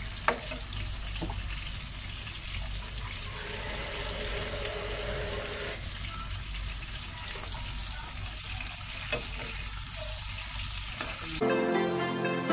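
Chicken drumsticks and onion sizzling steadily in oil in a nonstick frying pan, with a spatula knocking sharply against the pan just after the start and once more, more faintly, later on. About eleven seconds in the sizzle cuts off and music begins.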